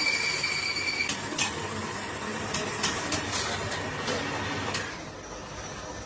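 Workshop machinery and tool sounds: a steady high whine that stops about a second in, followed by a scattered series of sharp metallic clicks and knocks.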